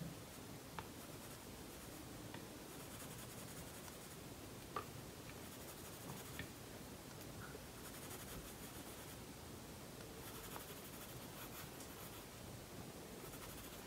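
Faint scratching of a colored pencil on sketchbook paper: several spells of quick shading strokes, with a few soft ticks of the pencil tip touching down.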